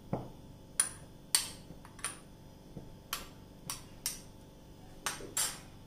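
A metal spoon clinking and scraping against a glass bowl as grated coconut is knocked out of it: a string of short, sharp clinks, roughly one every half second.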